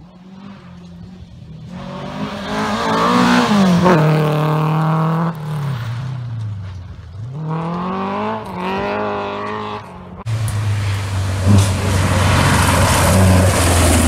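Rally cars on a gravel stage going past at speed, engines revving hard with rising and falling pitch as they change gear and lift off. About ten seconds in it jumps suddenly to a louder, closer engine at full throttle.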